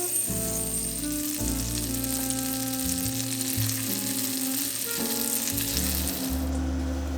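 Meatballs sizzling as they fry in a pan, a dense hiss that cuts off suddenly near the end, with background music playing throughout.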